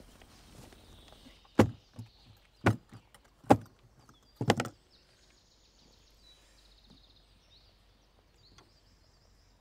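Four sharp knocks about a second apart. Then faint metallic scraping and clicking as a lockpick works the iron lock of a wooden chest.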